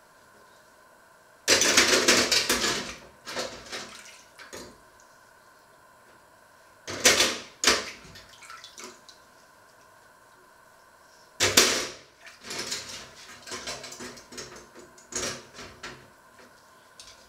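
Water from a kitchen tap running and splashing into a stainless steel sink in several short bursts, with knocks and rattles of washing up between them.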